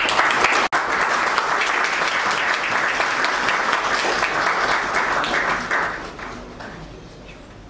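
Audience applauding, starting abruptly and dying away about six seconds in.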